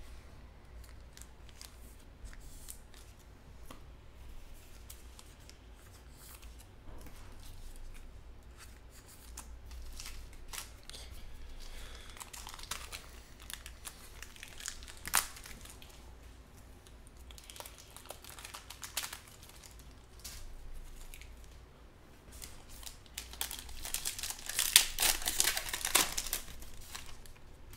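Foil trading-card pack being handled and torn open: scattered light clicks and rustles, then a louder stretch of crinkling and tearing of the foil wrapper near the end.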